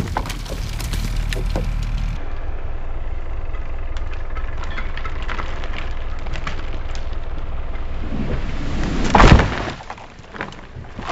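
A dead ash tree cracking and splintering as it goes over, then crashing to the ground about nine seconds in, the loudest sound. Before the fall a motor runs steadily underneath, with small cracks of wood.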